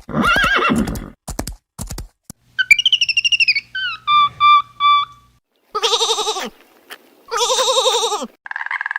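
A run of short animal calls of several different kinds, one after another with brief gaps. There is a warbling high call about three seconds in, then three short even notes. Two longer quavering, bleat-like calls come near the end.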